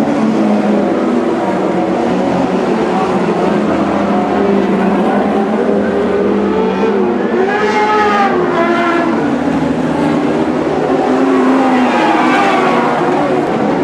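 A field of Lightning Sprint mini sprintcars racing on a dirt oval, their engines running hard. The engine pitch keeps rising and falling as the cars go through the turns and down the straights.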